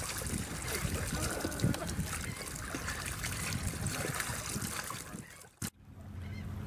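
Oars of an inflatable raft dipping and splashing in the water beside the boat. The sound drops away abruptly about five and a half seconds in, with a single click.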